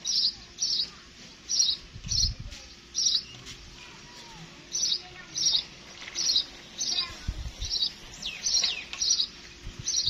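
A house sparrow chirping over and over, short chirps mostly in pairs, about two a second. Two brief low bumps come about two seconds in and again after seven seconds.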